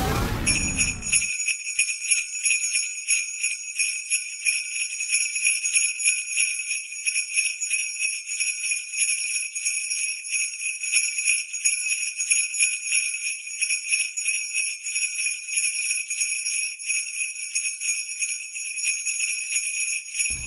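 Sleigh bells shaken in a steady, rapid, unbroken jingle with nothing deeper beneath them. A lower sound falling in pitch dies away within the first second as the bells come in.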